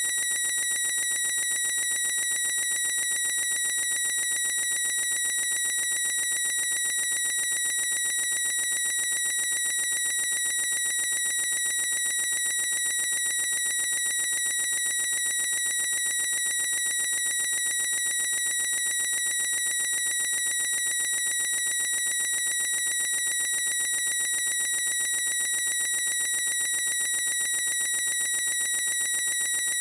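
A boy's high-pitched squeal drawn out into one unbroken, steady tone, shrill like an alarm, with no breath or change in pitch.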